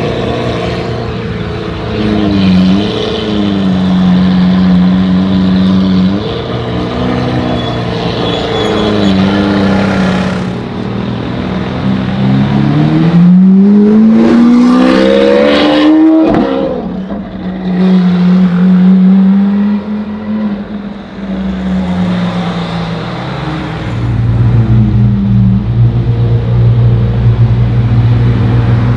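Lamborghini Aventador SV's V12 engine through a loud Capristo aftermarket exhaust, running at low revs while driving slowly. About halfway through it revs up, rising in pitch for a few seconds before cutting off sharply, then settles back to low steady running, with a deeper steady note near the end.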